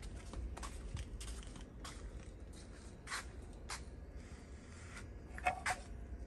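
Handling noise from a small car-audio DSP unit being moved about in the hand: scattered light clicks and scrapes, a sharper pair of clicks near the end, over a steady low hum.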